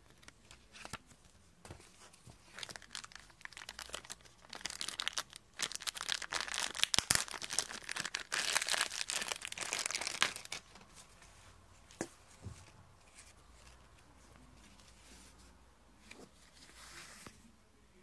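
Paper and packaging being handled: crinkling and rustling mixed with small handling clicks. It builds to a dense stretch of crinkling in the middle, then drops to occasional taps and one brief rustle near the end.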